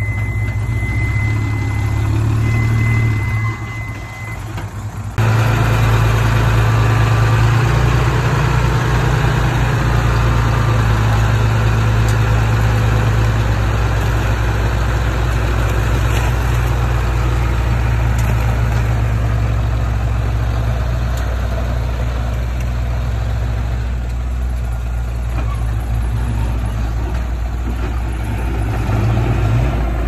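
Bulldozer's diesel engine running steadily under work, a deep continuous drone. A thin high steady tone sounds over it for the first four seconds, and about five seconds in the sound jumps abruptly louder and fuller.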